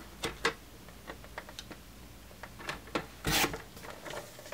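Paper trimmer blade sliding along its track, cutting corners off a sheet of patterned paper in short scraping strokes, with the longest and loudest stroke about three seconds in.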